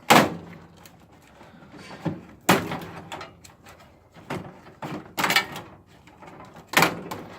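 Metal parts of an appliance being handled and pulled apart for scrap: four sharp clanks with scraping, and lighter knocks between them.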